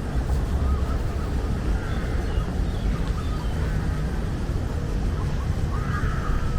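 Steady low rumble of city traffic, with birds calling in short chirps now and then, clearest near the end.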